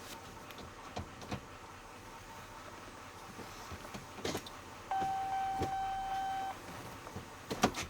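A few light clicks, then a single steady electronic beep held for about a second and a half, followed by a couple of sharper clicks near the end.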